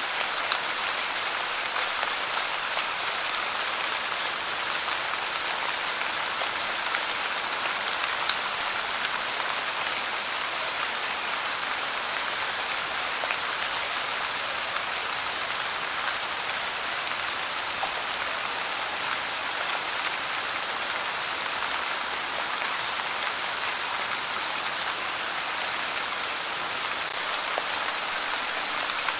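Light rain falling steadily: an even hiss of drops, with faint individual drop ticks scattered through it.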